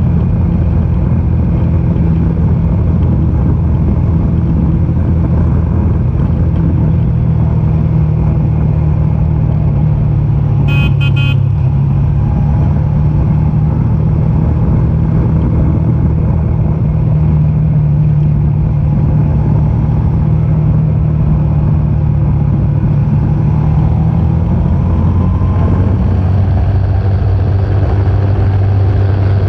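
Motorcycle engine running steadily under way, heard from the rider's seat, with a short horn toot about eleven seconds in. The engine note drops about twenty-five seconds in as the bike slows.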